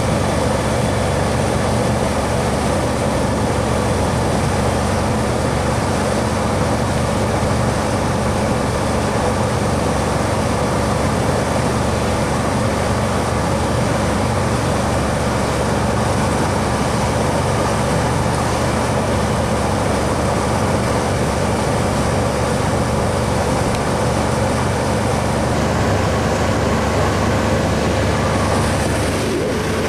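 A boat's inboard engine running steadily at cruising speed, a constant drone, with the rush of water and wind over a moving hull beneath it.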